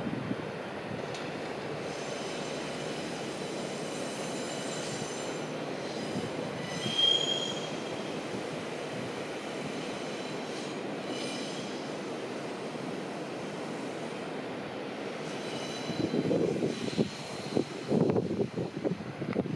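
KiHa 40 diesel railcar rolling slowly over yard tracks and points, with a steady running rumble and thin high-pitched wheel squeals, one sharper squeal about seven seconds in. Near the end, gusts of wind buffet the microphone.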